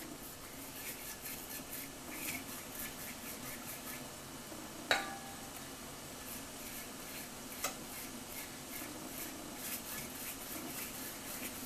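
Pastry brush spreading thin batter across a stainless-steel skillet: soft, repeated brushing and light scraping strokes, with a sharp knock on the pan about five seconds in and a lighter one just before eight seconds.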